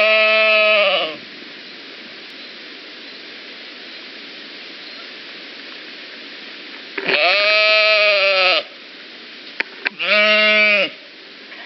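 Animal bleating three times: a drawn-out bleat at the start, another about seven seconds in, and a shorter one about ten seconds in. A steady hiss runs between the bleats, with two brief clicks just before the last one.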